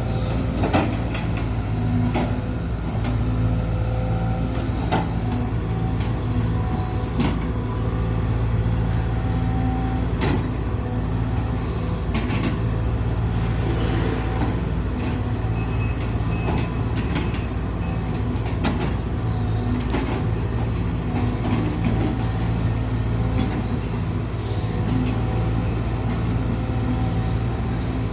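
A large engine running steadily at a constant speed, with scattered sharp metallic clicks and knocks over it.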